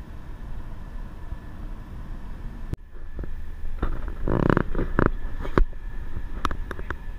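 Steady road rumble of a vehicle driving, with a faint steady whine, cut off abruptly a little under three seconds in. It is followed by a series of short knocks and rustles.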